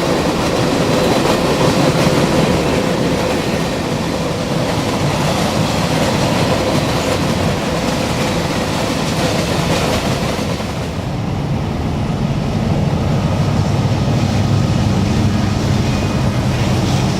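CSX freight train's cars rolling past, wheels running on the rails. About eleven seconds in, the rail noise drops off sharply, leaving a steady low engine hum.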